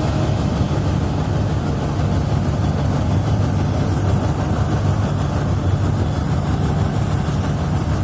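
A steady low rumble or drone, even throughout, with no distinct calls or knocks.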